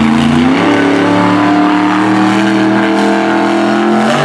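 Monster truck engine revving up and held at high revs in one steady, loud note, dropping off near the end as the truck goes over a dirt jump.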